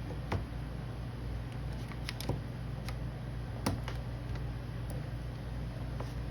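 Scattered light clicks and taps, about six, irregularly spaced, from scissors being handled and sharpened by hand, over a steady low hum.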